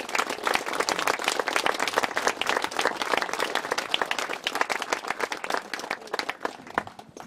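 Audience applauding at the end of a sung performance, many hands clapping densely, then thinning out and stopping near the end.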